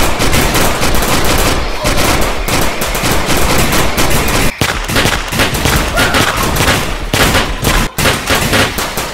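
Gunfire sound effects: long, rapid runs of automatic fire with many shots overlapping, dubbed over a mock shootout with toy guns.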